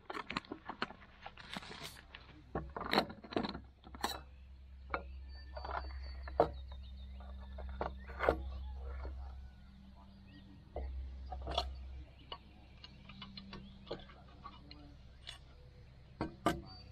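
Camp cookware being unpacked from a fabric stuff sack: rustling of the bag with repeated clinks and knocks of the metal pot, lid and nested pieces against one another and the wooden table.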